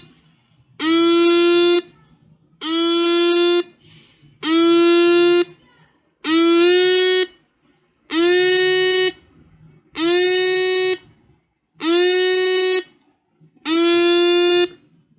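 Seven-transistor alarm circuit sounding one of its alarm tones: a rich pitched beep about a second long, rising slightly in pitch as it starts, repeated about every two seconds, eight times.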